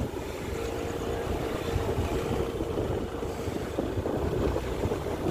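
Motorcycle engine running at a steady cruise while riding, with a low rumble of wind on the microphone.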